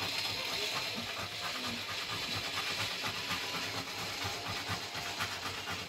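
Scratch-off world map being scratched, the coating scraped away in quick, repeated strokes with a steady hiss.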